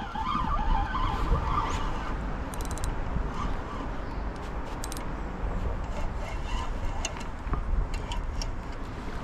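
A fishing rod and reel being worked to bring in a hooked fish: scattered short clicks and rattles over a steady low rumble.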